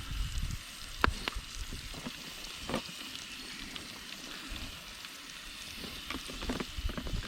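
Hash browns with onions frying in a pan, a steady sizzle, with a few sharp clicks about one and three seconds in.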